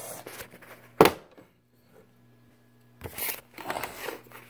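Handling noises as things are moved about: a sharp knock about a second in, then a couple of seconds of scraping and rustling near the end, over a faint steady hum.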